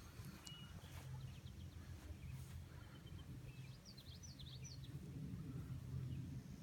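Faint low outdoor rumble across an open field, with a small bird's quick high chirps, a couple early on and a rapid run of several about four seconds in.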